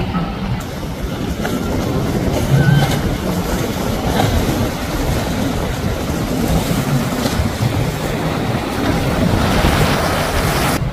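Outboard motors on center-console boats running at speed through choppy waves, with water spray and a steady rushing noise throughout.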